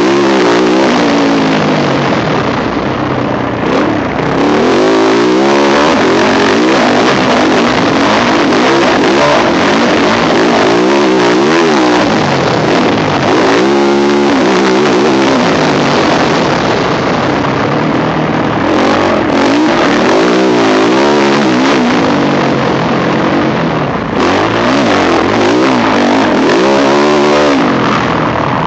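Yamaha YZ450F four-stroke single-cylinder motocross engine heard from the rider's helmet camera, revving hard up and down over and over as it is ridden around a dirt track. The engine note drops away briefly about four seconds in and again near the end.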